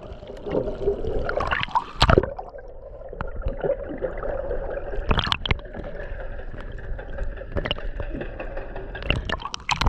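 Seawater heard through a waterproof action camera held just under the surface: muffled gurgling and sloshing with a steady hum underneath, broken by a few sharp knocks.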